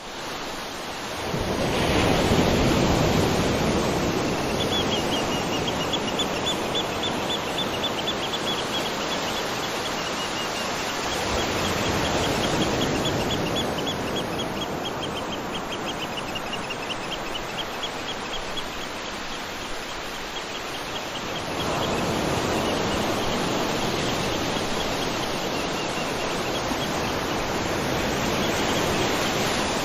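Waterfall rushing steadily, water pouring onto rock and pool, swelling slightly a couple of times. A high, rapidly repeated chirping call sounds over the water for long stretches.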